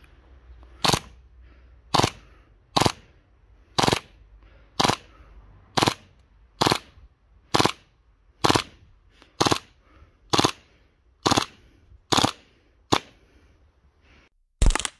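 Action Army AAP01 gas blowback airsoft pistol firing a string of sharp shots, about one a second, then two quick shots near the end.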